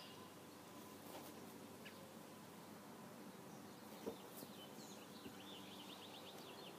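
Near silence with faint birds chirping, including a quick run of chirps in the second half, and one soft knock about four seconds in.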